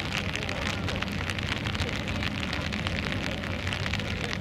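Steady rain, with many small drops ticking close by over a low, even rumble.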